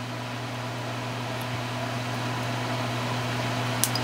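Steady low machine hum under an even hiss, getting slightly louder, with one sharp click near the end.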